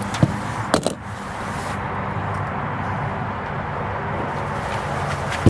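A few sharp metal clinks from loose steel pieces of a dismantled microwave oven transformer being handled, about a quarter second and three quarters of a second in and once more at the end, over a steady low rumble.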